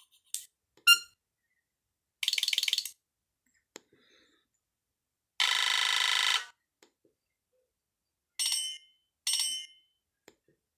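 Nokia E5-00 mobile phone's loudspeaker playing a string of brief ringtone snippets, each cut off after under a second, with silence between them: a sharp blip about a second in, a fast rattling phrase, a longer ringing tone in the middle, and two short bursts near the end.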